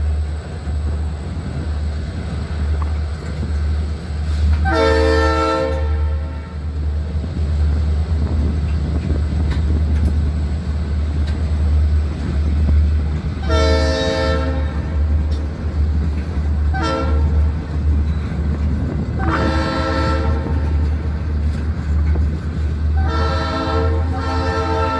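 Diesel locomotive air horn sounds four times over a steady deep rumble of freight cars rolling past. The first three blasts are about a second each, and the last is longer and still sounding at the end.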